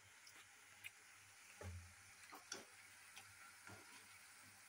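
Near silence with a few faint, scattered clicks and light taps.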